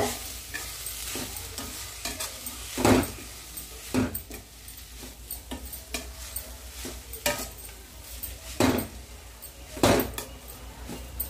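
A steel spoon stirring drumstick leaves and onions in a stainless steel kadai, with scraping and irregular clinks against the pan, about half a dozen of them loud, over a faint sizzle.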